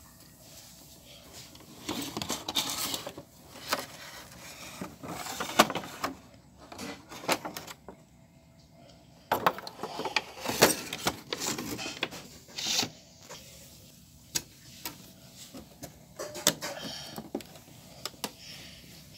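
Thin plastic packaging tray rustling and crinkling as a toy foam-dart blaster is handled and pulled from it, in irregular bursts with sharp clicks and knocks of hard plastic.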